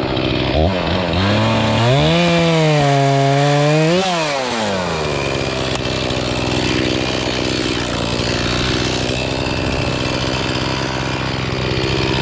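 Chainsaw revved to full throttle and cutting a broken maple limb for about three seconds, the engine pitch sagging slightly under load, then rising sharply as the cut goes through and dropping back to a steady idle for the rest.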